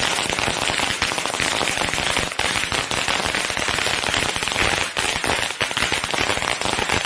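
Firecrackers crackling in a dense, continuous volley of rapid pops.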